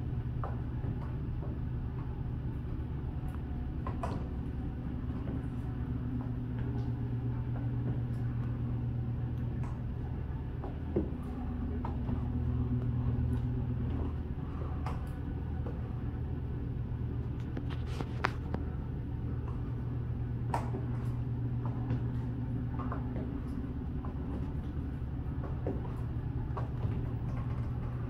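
High-heel pumps clicking on a tiled floor in scattered, irregular steps, over a steady low hum.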